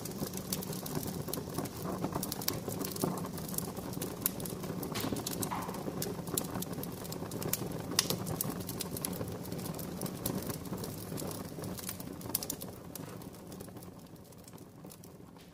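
Campfire crackling: irregular sharp pops and snaps over a soft hiss, fading out near the end.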